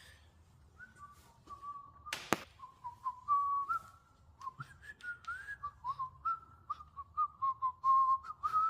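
A person whistling a wandering tune, with one sharp click a couple of seconds in.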